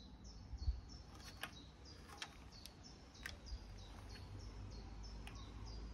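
A small bird calling over and over, a short falling chirp about three times a second. A few light clicks and a low bump about a second in, from the rifle being handled.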